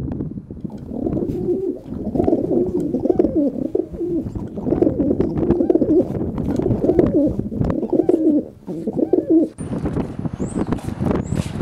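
Pigeons cooing over and over, a low wavering call. Near the end the cooing stops, wind noise takes over, and a couple of short high chirps are heard.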